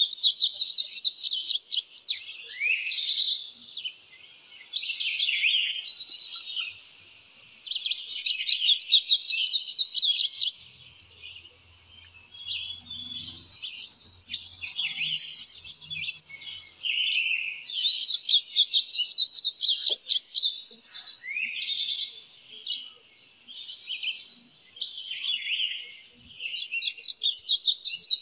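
Indigo bunting singing: repeated high, quick phrases of rapid notes, each a second or two long, with short pauses between.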